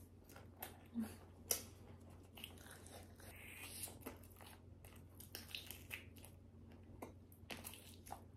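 Close-miked chewing of a mouthful of cheese-filled sausage: soft, wet mouth clicks and smacks, with a few sharper clicks about a second in.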